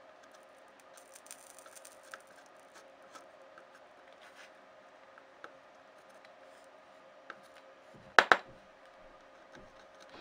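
Small hand tools handled at an electronics repair bench: light ticks and scratching over a faint steady hum, then two sharp clicks close together about eight seconds in.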